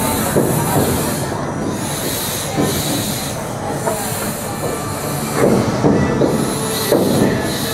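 Steam train running along the track, with hissing steam that swells and fades and the rumble and squeal of its wheels.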